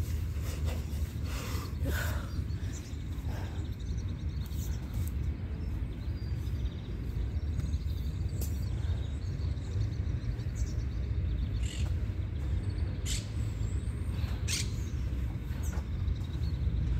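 Steady low rumble of wind on the microphone, with a few short clicks and bird chirps over it.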